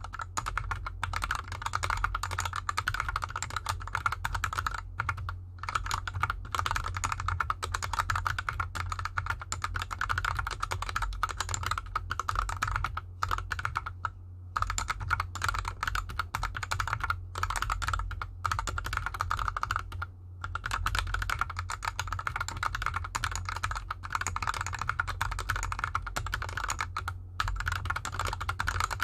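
Continuous fast typing on a GK64X hot-swap mechanical keyboard with lubed Gateron Yellow linear switches and DSA keycaps, the keyboard resting on an artificial grass mat. Dense, rapid key clacks, broken by brief pauses about 14 and 20 seconds in.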